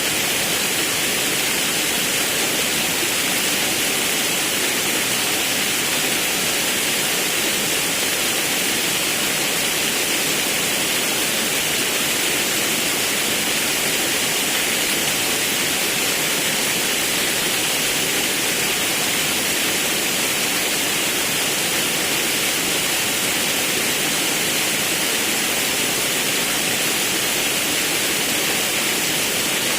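Forest river rushing over a small waterfall: a steady, even roar of running water with no breaks.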